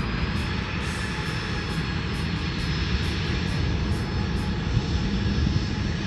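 Boeing 737 jet airliner's CFM56 turbofan engines running at power as it rolls along the runway: a steady rushing noise with a thin high whine that rises slightly about a second in.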